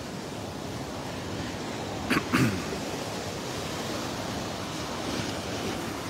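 Small Gulf of Mexico waves breaking and washing up a sandy beach, a steady surf wash with some wind on the microphone. About two seconds in come two short, louder sounds close together.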